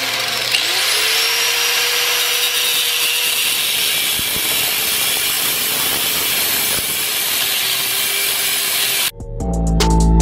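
Angle grinder with a cut-off wheel cutting a steel plate clamped in a vise: a steady harsh grinding, the motor's whine climbing back up about half a second in. It cuts off abruptly about nine seconds in, and music starts.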